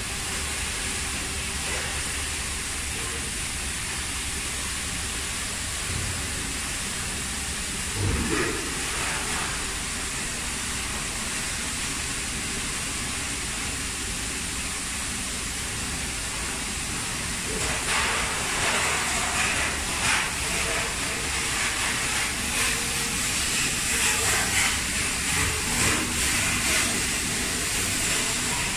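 Steady hiss of factory background noise. Scattered faint knocks and clatters come in during the second half.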